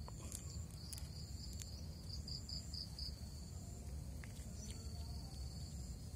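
Insects chirring in a steady high, thin tone, pulsing briefly about two to three seconds in, over a low rumble and a few faint clicks.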